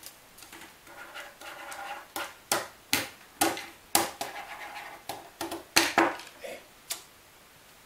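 Short, sharp panting breaths and grunts from two men, about a dozen in a few seconds, with hands scuffling on a wooden table.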